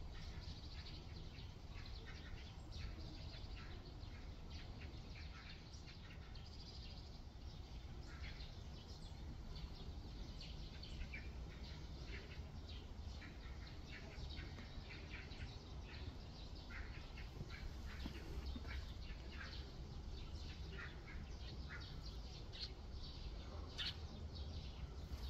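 Small birds chirping in short, scattered calls throughout, over a low steady rumble.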